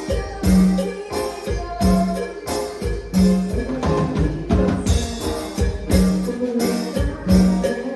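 Instrumental cumbia music with a steady beat: drums and percussion with a recurring low note, and no singing.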